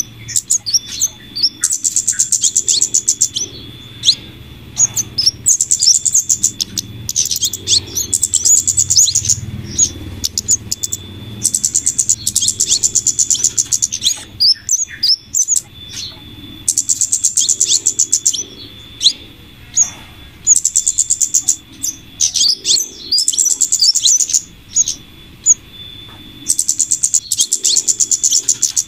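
Bird-lure recording of flowerpecker calls combined with female scarlet minivet calls. Fast trains of very high ticking notes alternate with short, high, downward-sweeping chirps, and the pattern repeats every few seconds as a loop.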